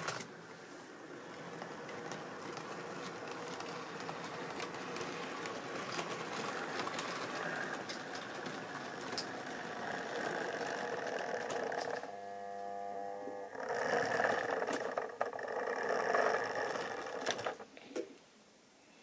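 OO-gauge model diesel locomotive hauling a rake of tank wagons along sectional track: a steady whirring of the small electric motor and running gear, with clicks from the wheels, and a brief steady hum about twelve seconds in. It gets louder about two seconds later as the train draws close, then stops just before the end as the locomotive comes to a halt.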